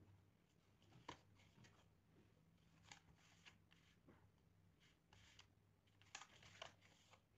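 Near silence: faint scattered clicks and rustles of a corrugated plastic sheet and pliers being handled, over a low steady hum.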